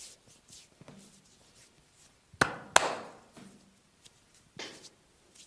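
Two loud, sharp smacks of hands on bare skin during a back massage, about a third of a second apart, then a fainter one near the end, with soft rubbing between.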